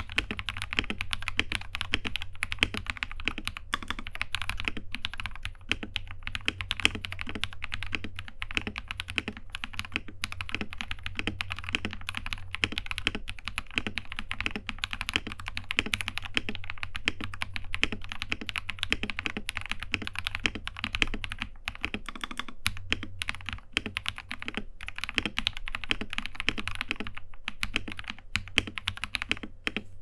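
Continuous typing on a Royal Kludge RK84 mechanical keyboard fitted with Akko Radiant Red linear switches: a dense, unbroken run of keystroke clacks.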